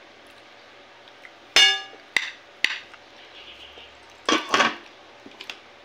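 Tableware clinking on a dining table: one loud ringing clink about one and a half seconds in, two sharper clicks soon after, and a short clatter of dishes about four seconds in.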